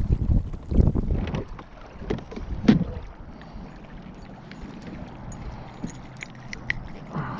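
Handling noise in a kayak: a run of low thumps and knocks in the first three seconds, one sharper knock near three seconds in, then a steady low rumble of wind on the microphone with scattered light clicks.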